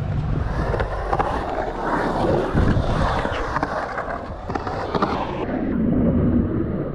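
Urethane skateboard wheels (60mm Bones SPF 81b) rolling on a concrete bowl, a steady rolling rumble that swells and fades as the board pumps and carves up the walls. Several sharp clicks come as the wheels cross the joints between concrete slabs.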